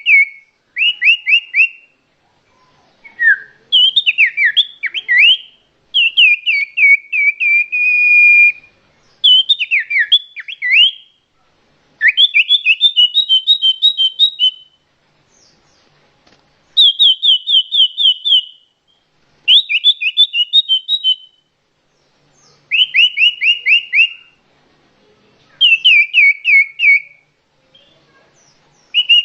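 A songbird singing loud, repeated phrases, each a fast run of whistled notes that slide downward, with short pauses of about a second between phrases.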